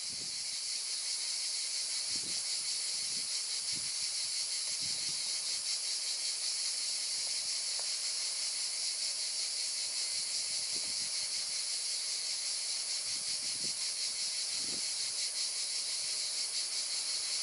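A dense chorus of cicadas buzzing steadily: a shrill, unbroken hiss with a fast pulsing texture.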